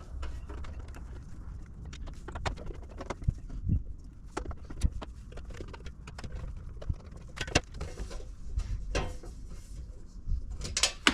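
Scattered clicks, knocks and metal-on-metal handling as screws are taken out of a metal electrical panel cover. Near the end comes a louder cluster of sharp metallic clatters, a screw falling.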